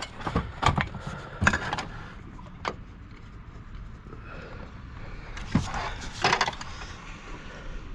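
Handling noise of work at the top of a ladder: scattered sharp clicks and knocks as hands fit drop hardware, with a quieter stretch in the middle and a few more knocks near the end.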